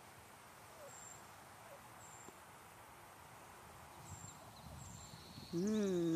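Quiet outdoor background with a few soft, short calls from a wild turkey hen and faint high peeps about once a second. Near the end a person's voice lets out a drawn-out, rising-then-falling hum lasting about a second, the loudest sound.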